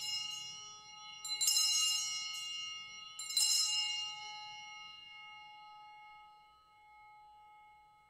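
Altar bell rung at the elevation of the chalice during the consecration. It is struck again about a second and about three seconds in, and each time it rings on with a clear, bright tone that slowly fades away.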